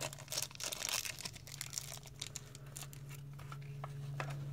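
Small clear plastic bag crinkling as it is handled and pulled open to take out Allen keys, thick with crackles in the first two seconds, then thinning to a few light clicks and rustles.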